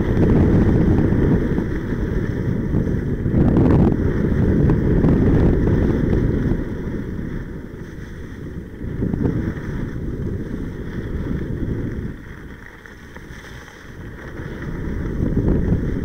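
Wind buffeting the microphone of a camera carried by a skier moving fast downhill: a loud, low rumbling rush that eases for a couple of seconds past the middle and builds again near the end.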